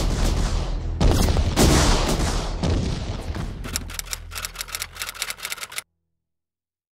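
Trailer sound effects: heavy booming hits over a low rumble that slowly fades, then a rapid run of sharp clicks, about seven a second, that cuts off suddenly about a second before the end.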